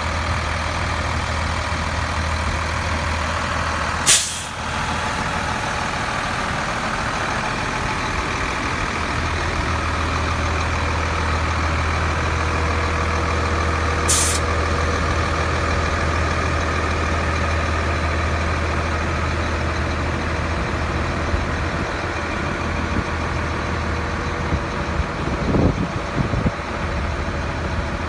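Dump truck's engine idling steadily, with two short, sharp hisses of released air from the truck's air system, about four seconds in and again about ten seconds later. A few light knocks near the end.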